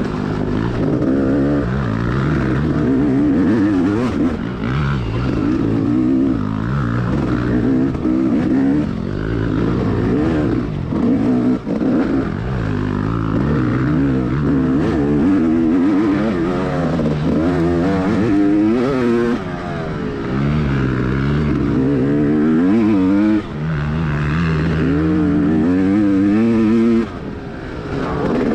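Dirt bike engine revving up and down while being ridden on a trail, its pitch climbing and falling constantly, with a few brief drops off the throttle.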